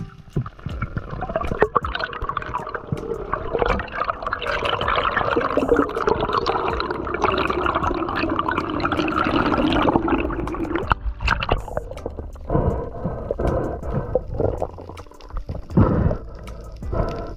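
Air bubbles streaming underwater: a continuous bubbling gurgle for about nine seconds, breaking into shorter gurgles near the end.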